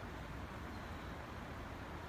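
Steady outdoor background noise: an even hiss over a fluttering low rumble, with no distinct event.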